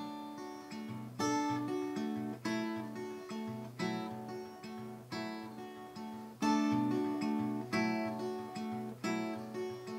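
Acoustic guitar played solo, an instrumental passage between sung lines: picked chords with a strong accent about every second and a quarter and lighter notes in between.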